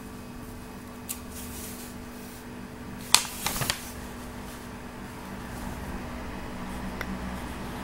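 A glossy magazine page being turned by hand: a short crisp paper rustle about three seconds in, after a light tap about a second in, over a faint steady background hum.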